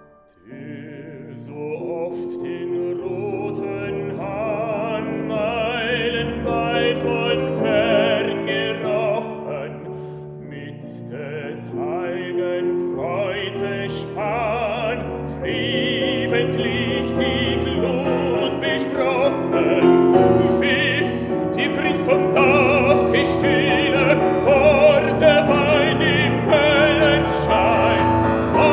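Operatic baritone singing a German art song with strong vibrato, accompanied by a grand piano. The sound dips almost to nothing for a moment at the start, then the piano and voice come back in.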